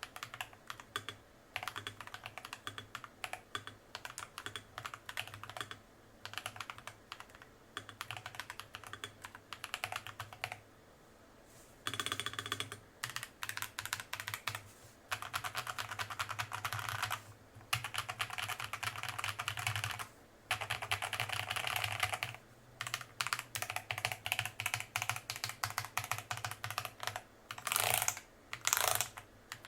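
Fast typing on a custom tenkeyless mechanical keyboard with TTC Long Pole tactile switches and a mix of PC and ABS double-shot Cherry-profile keycaps: dense runs of keystroke clacks broken by brief pauses, with a few louder strokes near the end.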